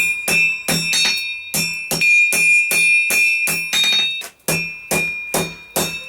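Hand hammer striking hot steel on an anvil in a steady rhythm, about two and a half blows a second, the anvil ringing between blows: drawing out tong reins by hand.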